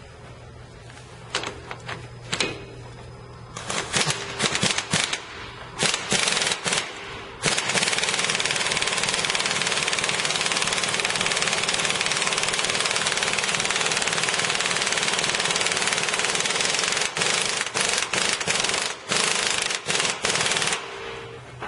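Impact wrench hammering, driving the forcing screw of a heavy-duty U-joint puller to press a universal-joint bearing cap out of a driveshaft yoke. It comes in short bursts, then runs without a break for about nine seconds, then stops and starts in short bursts again.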